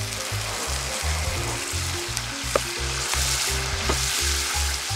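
Hamburger steak sizzling hard in a hot cast-iron skillet over charcoal, the sauce poured onto it hissing, with a few sharp pops. Background music with a steady bass beat plays underneath.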